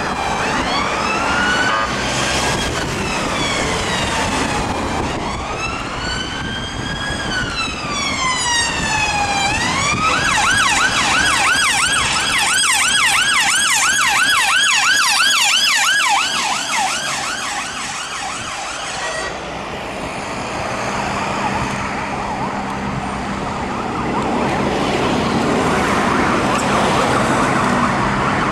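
Emergency vehicle siren sounding a slow rising and falling wail, switching about ten seconds in to a fast yelp. It stops about two-thirds of the way through, leaving a steady hum and road noise.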